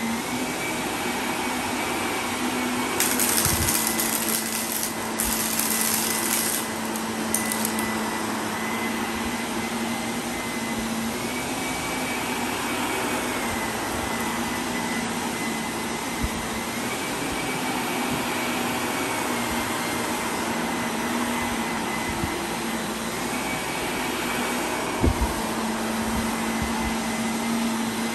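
Shark upright vacuum cleaner running steadily over carpet, its motor whine stepping slightly up and down in pitch every few seconds. Harsher hissing comes about three to seven seconds in, and a couple of brief knocks come later.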